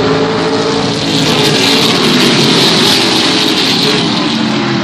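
A pack of racing pickup trucks running past the grandstand, several engines sounding at once with their pitches sliding. The sound swells about a second in and eases off near the end.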